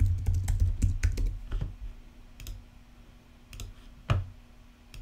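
Typing on a computer keyboard: a quick run of keystrokes in the first second and a half, then a few scattered keystrokes with a louder one about four seconds in.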